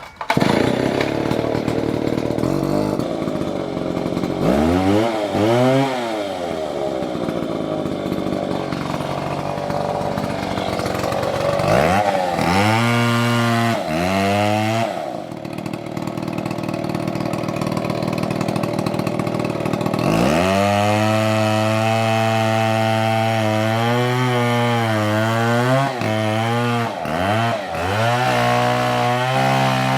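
Stihl chainsaw running and cutting wood. The engine pitch rises and falls several times in the first half, then holds high for most of the last ten seconds with brief dips.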